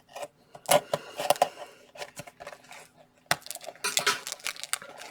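Trading-card blaster box being opened and handled: a scatter of sharp crackles and clicks from the packaging, in two spells, about half a second in and again from about three seconds in.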